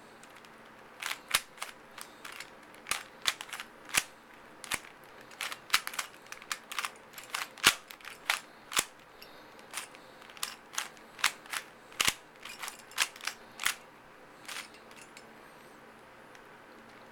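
Plastic Rubik's Cube layers being turned by hand, a rapid irregular series of sharp clicks, several a second, that stops about two seconds before the end as the final moves are made.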